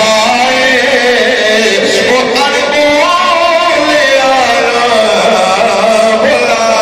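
A man's voice singing a melodic recitation into a microphone, long held notes bending up and down in pitch.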